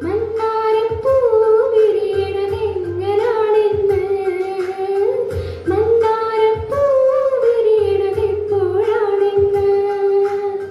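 A female voice singing a melody with long held notes over instrumental accompaniment with a steady low beat.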